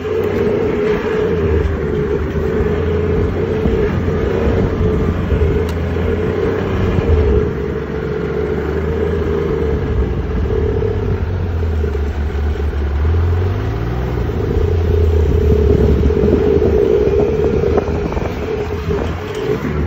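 Snowmobile engine running steadily under way, its pitch briefly dipping and rising again about 13 seconds in.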